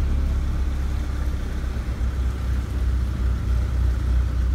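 Low, steady rumble of a car heard from inside its cabin as it moves through floodwater.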